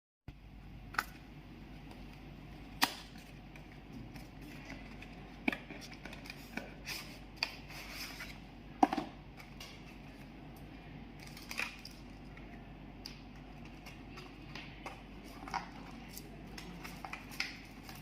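Handling noise from unboxing earbud packaging: scattered sharp clicks and taps with a few soft scrapes, a couple of seconds apart, over a steady low hum.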